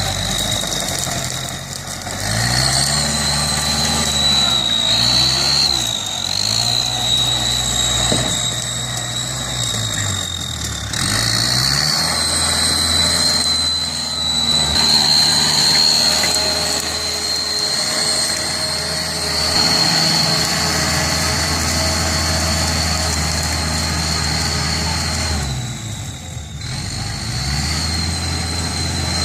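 Kubota L5018 tractor's diesel engine running under load, its pitch dipping and rising several times in the first ten seconds and then holding steady, with a high steady whine over it and a brief dip in level near the end.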